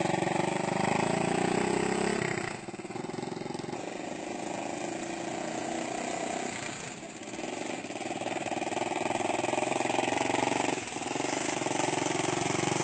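Small motorcycle-type engine of a homemade helicopter-shaped vehicle running steadily as it drives along, its level dipping briefly and recovering three times.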